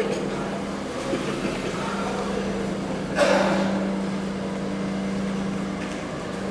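Tamiya Volvo radio-controlled tractor-trailer running with a steady hum, with a short loud hiss about three seconds in.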